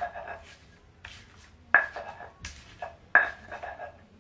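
Stone pestle pounding fresh red chilies in a stone mortar: a series of sharp stone-on-stone knocks, roughly one every half to three-quarters of a second, each with a brief ring.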